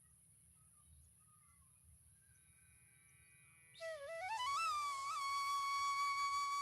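A few faint bird-like chirps, then about four seconds in a loud flute-like tone that glides up in pitch and holds steady with small wobbles: a comic sound effect.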